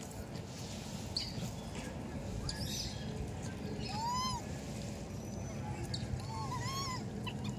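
Baby monkey squeaking: one arched squeal about four seconds in, then a quick run of three or four shorter squeals near the end, over a steady low background hum.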